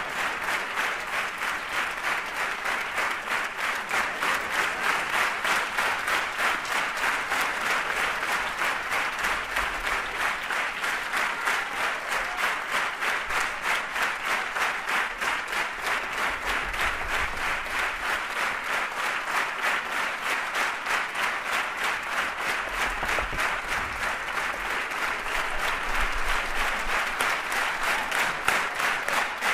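Theatre audience applauding steadily, the clapping falling into a regular beat of about three claps a second.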